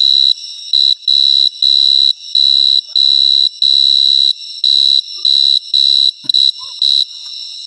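A burrowing insect calling very loudly: a piercing high-pitched buzz in even pulses, about two a second, each lasting around half a second.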